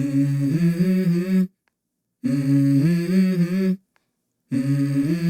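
Background music: a wordless hummed vocal melody in three phrases of about a second and a half each, with short silent gaps between them.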